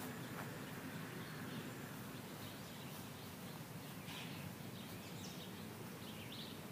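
Faint outdoor ambience: a steady low background hum with a few faint bird chirps, the chirps mostly in the second half.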